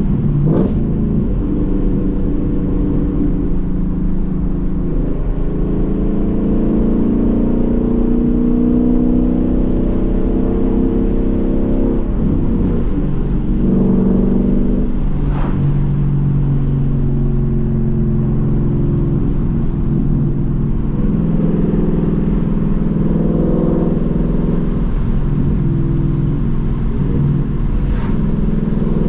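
Ford Mustang GT's 5.0 Coyote V8 running while being driven, its engine note climbing and dropping several times as it accelerates and eases off, with a couple of brief clicks along the way.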